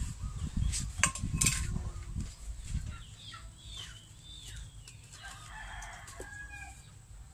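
A spatula stirring and scraping through curry in a large metal wok, with a few sharp knocks, over the first three seconds or so. After that, quieter chicken calls: hens clucking and a rooster crowing.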